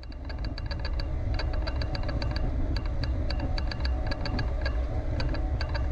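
John Deere 7710 tractor's six-cylinder diesel engine running as it drives along the road, a steady low rumble that grows louder over the first second. A rapid, uneven ticking runs over it.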